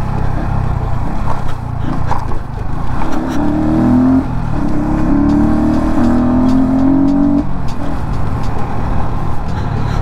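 Motorcycle riding on the road, its engine note climbing three times in a row, each time dropping back, as it accelerates up through the gears, over a steady low rumble of wind and road noise.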